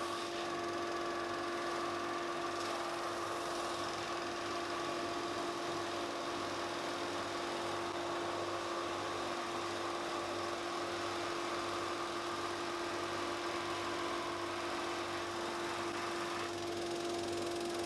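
Handheld electric woodworking power tool running steadily at constant speed, a continuous motor whine with no changes in load.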